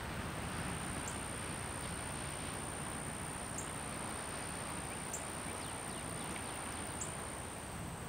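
Outdoor field ambience: a steady wash of background noise with a constant high-pitched insect drone, and four short, high chirps spread through it.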